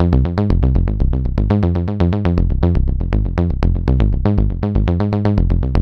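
Electronic dance music with a fast, even beat, a deep bass line and short repeated synthesizer notes.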